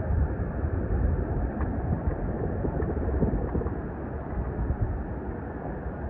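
Low, rough rumble of wind buffeting the phone's microphone, mixed with the wash of water.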